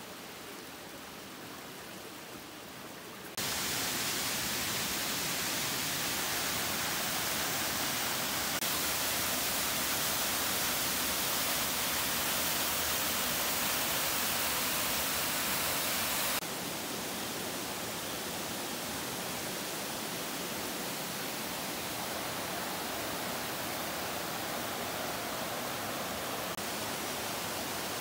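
Waterfall rushing: a steady hiss of falling water that jumps louder about three seconds in and drops back somewhat about sixteen seconds in.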